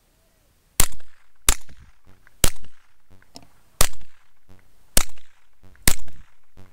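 Mossberg 930 semi-automatic 12-gauge shotgun fired six times in quick, uneven succession, roughly one shot a second, each shot with a short ringing tail.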